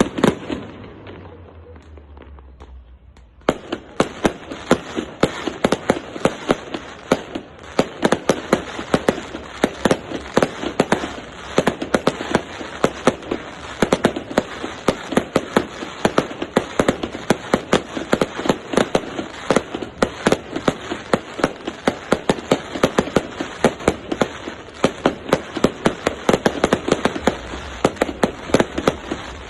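Fireworks display: one loud bang at the start, then, about three and a half seconds in, a dense, continuous string of sharp firecracker reports, many each second.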